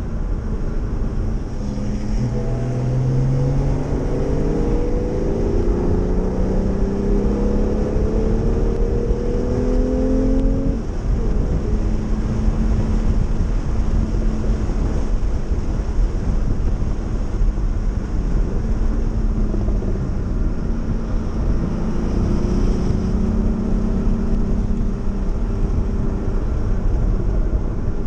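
Porsche sports car's engine heard from inside the cabin during a track lap. It accelerates with its pitch climbing steadily for several seconds, drops suddenly about eleven seconds in, runs at a steadier pitch, then climbs again near the end, over constant wind and tyre noise.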